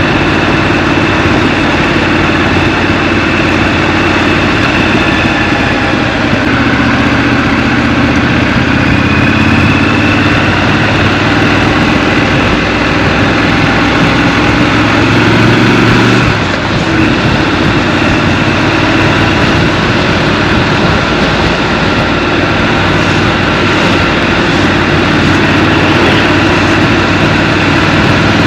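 Scrambler motorcycle engine running while riding through town, with road and wind noise. The engine note changes briefly a little past halfway, as when the throttle is closed or a gear is shifted, then runs on steadily.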